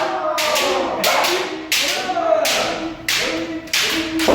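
Kendo sparring: repeated sharp cracks of bamboo shinai striking, with stamping footwork and drawn-out kiai shouts from the fencers.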